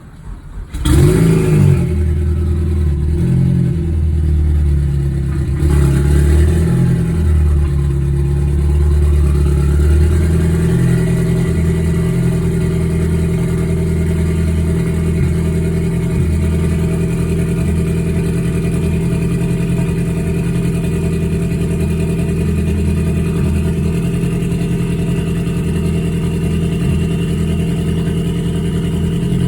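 Ford Focus engine cranking and catching about a second in, then idling fast and unevenly before settling to a steadier idle after about ten seconds. The engine is misfiring: the owner's Cobb tuner later logs a misfire count and he suspects the timing is off.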